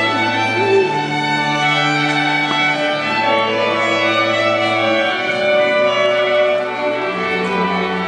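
Slow string music led by violin: long held notes over a bass line that moves to a new note about every two seconds, playing as wedding processional music.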